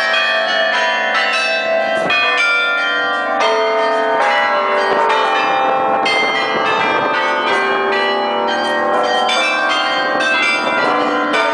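The Bruges Belfry carillon played by its automatic mechanism. Its bells are struck in quick succession, several notes a second, and each note rings on under the next, heard close up from inside the bell chamber.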